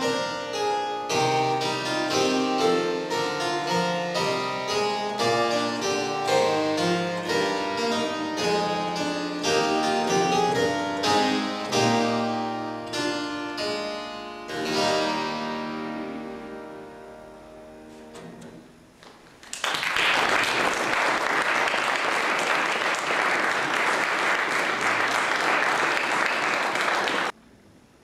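Harpsichord playing a busy run of plucked notes, ending about fourteen seconds in on a chord that rings out and dies away. A few seconds later an audience applauds, and the applause cuts off abruptly near the end.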